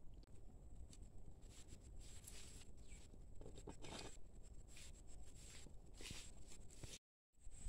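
Faint scuffs and footsteps on dry dirt, with a pot being set onto its stand over a small wood fire about four seconds in. A faint, steady high whine runs underneath.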